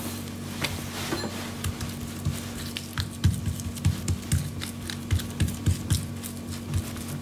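Hands pressing and patting oiled mufleta dough out into a very thin disc on a countertop: soft wet squishes and slaps, coming about three times a second from about halfway through, over a steady low hum.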